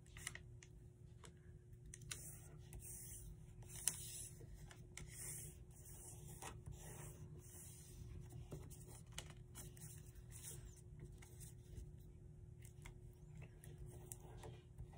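Faint rustling and creasing of a sheet of origami paper being folded and pressed flat by hand, with scattered soft taps and one sharper click about four seconds in.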